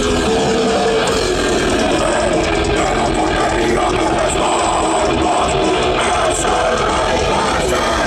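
Grindcore/death metal band playing live at full volume: electric bass and guitars with growled vocals into microphones, in one dense, unbroken wall of sound.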